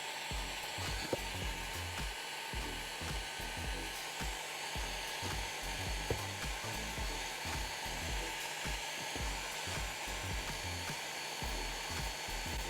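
Electric hot air gun blowing steadily, a constant hiss of air with an uneven low rumble, used to heat and repair a spot on a BMW door panel. Two brief clicks come about a second in and about six seconds in.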